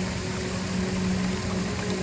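A waterfall rushing steadily, with a low, sustained ambient music drone under it.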